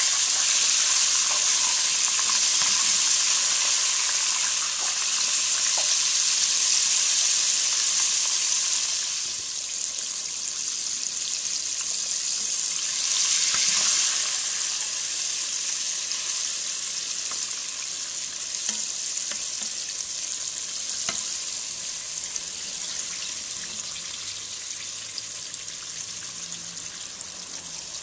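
Buttermilk-marinated fish deep-frying in hot oil: a steady sizzle with occasional pops. The sizzle is loud at first, eases about nine seconds in, flares briefly around the middle, then slowly dies down.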